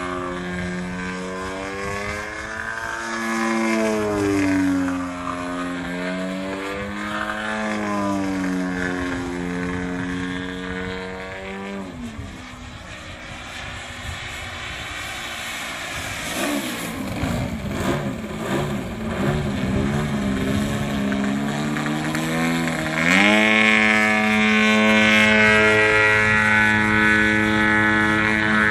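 Piped ZDZ 90 two-stroke gasoline engine turning a 28×9.5 propeller on a large model aerobatic plane in flight, its note bending up and down as it manoeuvres. About twelve seconds in the pitch drops and the engine runs lower and rougher for roughly ten seconds, then it opens up sharply to a loud, high, steady note that holds until it falls away at the very end.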